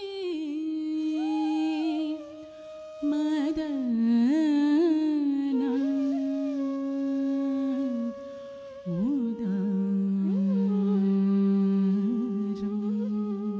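A singer's voice holding long, ornamented notes in Carnatic style, sliding and wavering between pitches over a steady drone. It breaks off briefly about two seconds in and again about eight seconds in.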